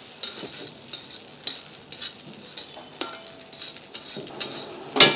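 Flat steel spatula scraping and knocking against a steel kadai while rice for egg fried rice is stirred, about two strokes a second, over a steady frying sizzle. The sharpest knock comes near the end.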